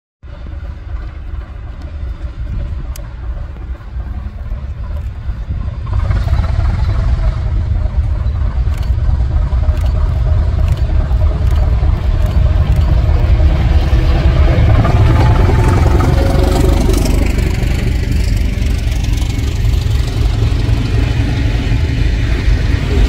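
ČSD class T 478.1 'Bardotka' diesel locomotive pulling a passenger train past, its diesel engine working under load with a heavy low rumble. The rumble gets louder about six seconds in as the locomotive comes close, and its engine note shifts in pitch as it goes by; near the end the coaches roll past with running noise from their wheels.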